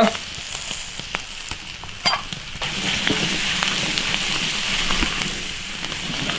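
Cut green chili peppers sizzling in a hot iron wok as they are stir-fried, with light clicks of the metal ladle against the pan. The sizzle grows louder about two and a half seconds in.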